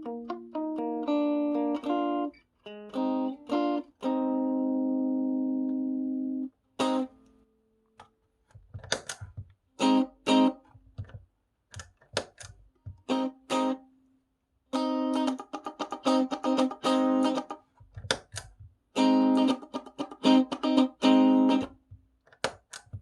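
Clean electric guitar played through a pedalboard, switched between a Keeley compressor pedal and the dry signal. A run of notes ends in one long held note, then short choppy notes and chords with brief gaps between them.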